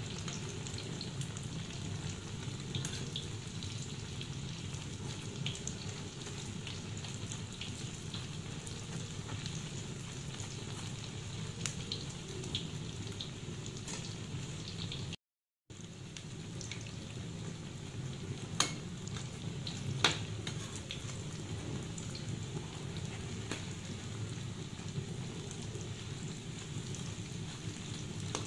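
Battered tempe gembus frying in a wokful of hot oil: a steady sizzle with scattered crackles and pops. The sound cuts out for a moment about halfway through, and two sharper clicks stand out a few seconds later.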